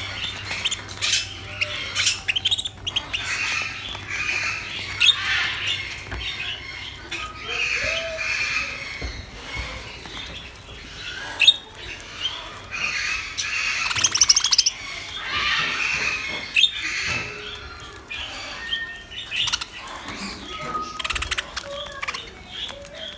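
Several budgerigars chattering and warbling on and off in bursts of scratchy chirps, with a few sharp clicks mixed in.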